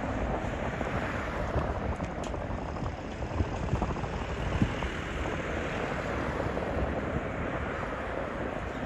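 Steady rumble and hiss of street traffic, with no siren standing out.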